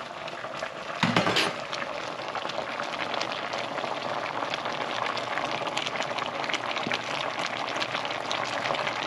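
Rabbit stew boiling in an uncovered stainless steel pot on an electric stove: a steady, dense bubbling with fine crackles, with a brief louder knock about a second in.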